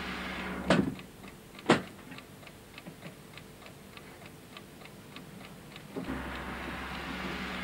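Two sharp clicks about a second apart, then faint, even ticking, about three or four ticks a second. A steady hum stops at the first click and comes back near the end.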